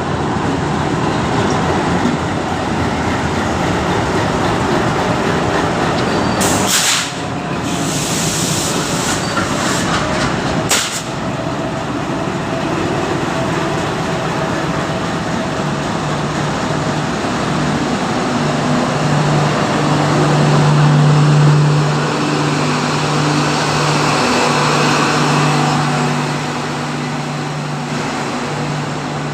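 Express train hauled by two diesel locomotives running on the rails with a continuous rumble; about halfway through a steady diesel engine drone sets in, loudest a few seconds later, and carries on to the end.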